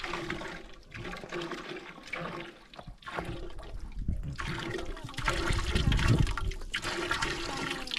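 Water from a hose pouring into a large aluminium cooking pot that is already partly full, the stream splashing into the water inside; it grows louder in the second half.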